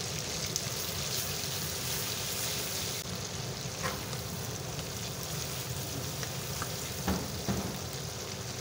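Chicken leg pieces frying in oil in a karahi (wok), a steady sizzle, while being fried uncovered until golden. A few light knocks of a metal spoon stirring in the pan come about four seconds in and again near the end.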